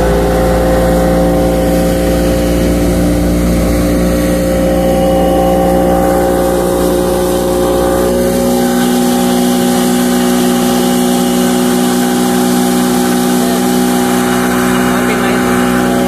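Motorboat engine running steadily under way, with rushing wind and water hiss over it; the engine note shifts about halfway through.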